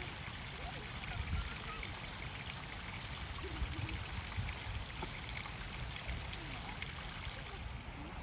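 Steady outdoor rushing noise, water-like or wind-like, with faint distant voices drifting through it.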